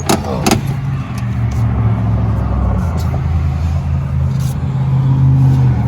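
Large truck engine running steadily with a low, even hum.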